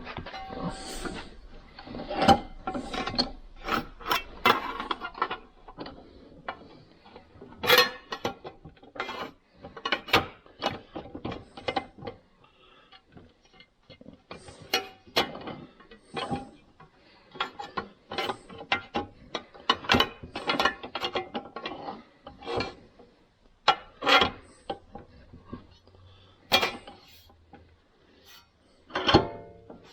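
Irregular sharp metal clicks, taps and clanks of hand tools working a sheet-metal patch panel clamped in a bench vise, some strikes leaving a brief ring.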